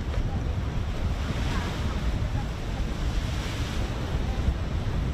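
Wind buffeting the microphone over open sea: a steady, low rumbling noise with the wash of the sea beneath it.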